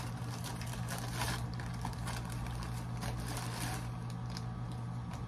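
Plastic packaging rustling and crinkling in short bursts as a poly mailer bag is handled and an item in a plastic bag is pulled out, over a steady low hum. The rustling thins out after about four seconds.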